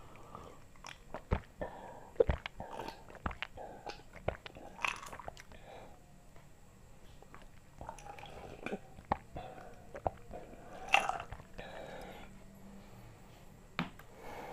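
Close-up mouth sounds of someone drinking iced orange juice from a glass mug: gulps and slurps, broken by many sharp clicks of ice cubes and glass.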